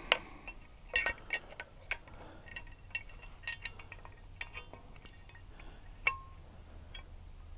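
Scattered light clicks and metallic clinks as a caster wheel is handled and fitted into its grey metal bracket, with one short ringing clink about six seconds in.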